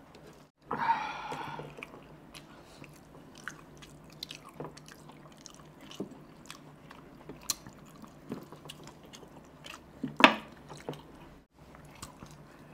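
Close-miked eating sounds: wet chewing and lip smacks as rice pulao and mutton are eaten by hand. There is a longer wet sound about a second in, then scattered short clicks, with the loudest smack about ten seconds in.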